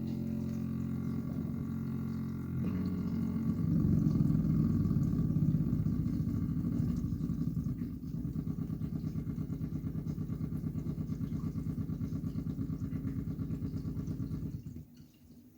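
Whirlpool WFC3C33PFXUK dishwasher just after filling at the start of a cycle: first a low, steady drone like a tuba, then after a few seconds a fast rattle like a machine gun that runs for about ten seconds and cuts off near the end. The owner finds no fault, as the machine still cleans perfectly.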